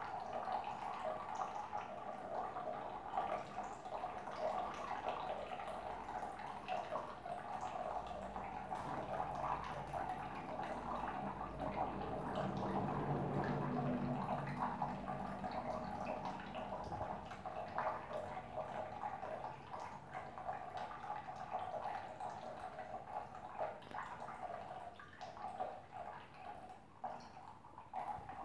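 A thin stream of water trickling and dripping steadily from a bidet tap into the ceramic bowl. About midway a low hum joins for a few seconds.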